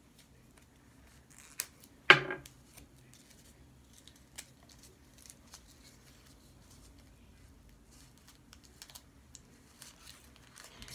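Electrical tape being handled and pressed onto a baseball: one short, sharp, loud sound about two seconds in, then faint scattered clicks and rustles.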